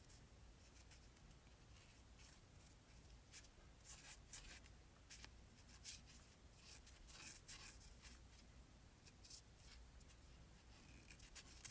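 Faint, irregular scratching and scrubbing strokes, the rusty metal parts of an old ratchet being cleaned by hand.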